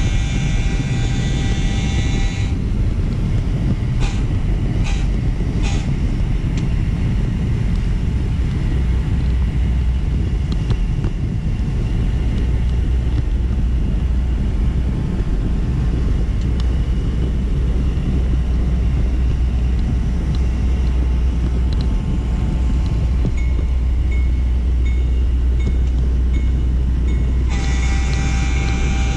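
Model train rolling along its track, picked up close by a camera riding on it: a steady low rumble of wheels and motor. A long horn blast from the locomotive's sound system sounds near the start and again near the end, with a few clicks in between.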